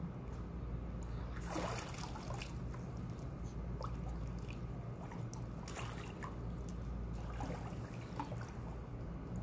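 Swimming-pool water sloshing and lapping as a child moves about in it, with a louder splash about two seconds in, over a steady low rumble.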